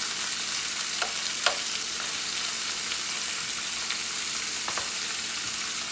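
Chicken pieces and chicken livers sizzling steadily as they brown in hot fat in a pot, with a few sharp clicks, the loudest about one and a half seconds in.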